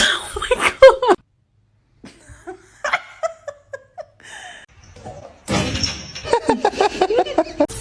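People laughing, with bits of voice. A steady run of laughter begins about two-thirds of the way through.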